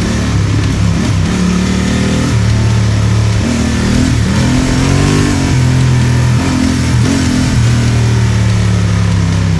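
Adventure motorcycle's parallel-twin engine running under way, its revs rising and falling several times with the throttle over a steady rushing noise.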